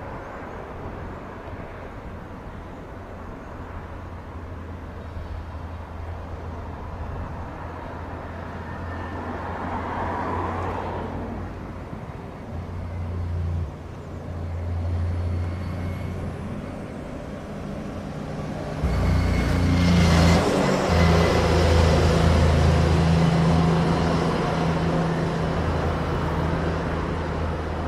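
Rumble of an Embraer regional jet's engines during its landing roll after touchdown, heard from a distance. About 19 seconds in, a louder, deeper engine rumble comes in and stays.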